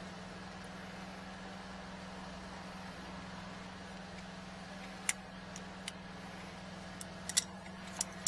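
Steady engine hum underneath a few sharp metal clicks from about five seconds in, as a metal nozzle is fitted and tightened with pliers onto a high-pressure drain-jetting hose.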